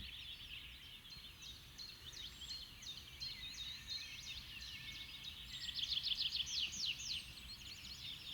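Birdsong: small birds chirping in quick runs of short falling notes, the runs growing denser and louder a little past the middle.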